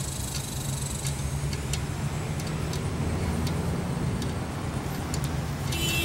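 Steady low rumble of nearby road traffic and vehicle engines, with a few faint clicks from hands and a tire lever working a motorcycle inner tube's valve stem into the rim.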